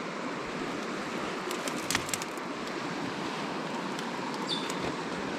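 Steady rush of a flowing river, with a few light clicks and knocks about two seconds in and again near the end.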